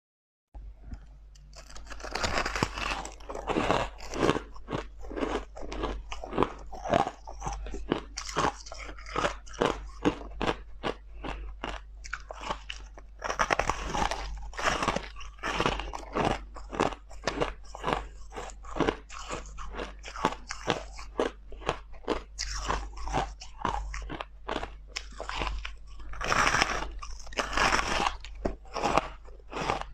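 Crushed ice being bitten and chewed: a rapid, continuous run of crisp crunches, over a faint steady low hum.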